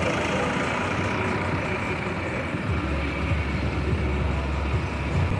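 Steady traffic noise, with a low engine rumble from a tractor and cars driving slowly past.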